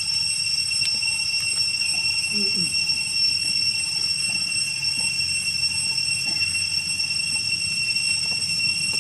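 Evening insect chorus: one unwavering high-pitched whine over a low rumbling haze, with a short falling note about two and a half seconds in.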